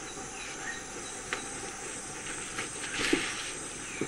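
Steady chirring of insects and crickets in a forest, with a few faint clicks and a soft knock about three seconds in.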